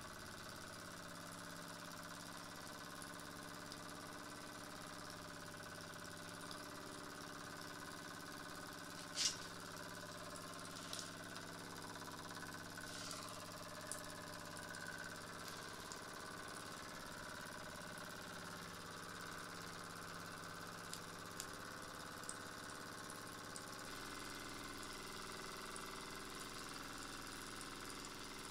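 Scratch-built model V-twin steam engine with 8x10 mm cylinders running steadily, giving a fairly quiet, even mechanical hum. A sharp click about nine seconds in and a few fainter ticks follow, and its note shifts slightly about three-quarters of the way through.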